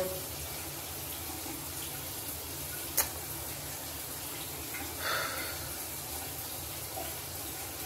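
Steady low hiss and hum of room noise, with one sharp click about three seconds in and a faint, brief rustle about five seconds in.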